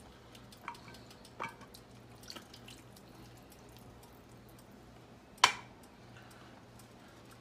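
A can of green chilies being emptied into an enameled cast-iron Dutch oven: faint scattered taps, scrapes and wet drips, with one sharp clink against the pot about five and a half seconds in. A steady low hum runs underneath.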